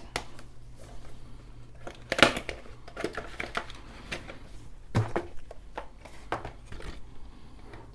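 Cardboard retail box of a Noctua fan and its plastic packaging being handled and opened: scattered rustling and crinkling, with sharper knocks about two seconds in and again about five seconds in.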